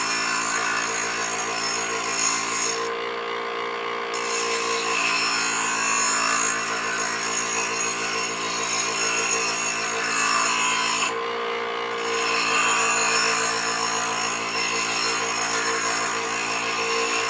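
Wet wheel grinder running with a steady motor hum while a steel planer knife is ground against its stone, a continuous grinding noise. The grinding noise eases briefly twice, about 3 and 11 seconds in.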